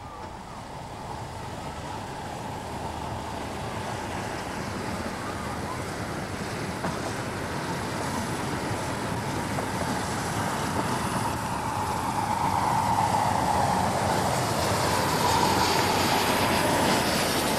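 Miniature steam locomotive hauling a train of riders, approaching and growing steadily louder.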